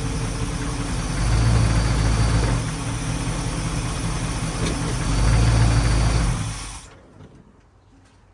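Engine of a 1981 Dodge Ram, fed by an Edelbrock 600 CFM four-barrel carburetor, running at idle and blipped up twice, just after its clogged idle circuit was blown out with compressed air. The engine sound cuts off suddenly about seven seconds in.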